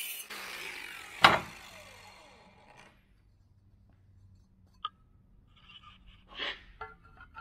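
Cordless angle grinder with a cutting wheel coming off the aluminium work and spinning down, its pitch falling over about two seconds. About a second in, one loud sharp knock on the steel bench; then a few light taps and handling sounds.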